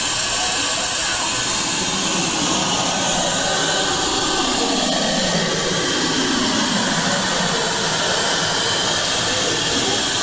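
Suction pump of a lollipop vending machine's suction-cup grabber running with a loud, steady hiss-like whoosh while it holds a lollipop, lifts it and carries it to the chute. A lower motor tone sweeps down and back up midway as the head moves.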